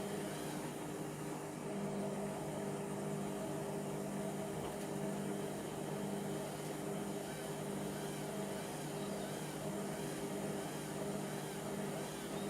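Indesit MTWC71252WUK washing machine running mid-cycle, its motor and drum giving a steady hum with several fixed tones that holds even throughout.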